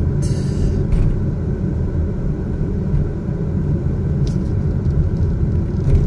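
Car driving, heard from inside the cabin: a steady low engine and road rumble, with a short hiss near the start.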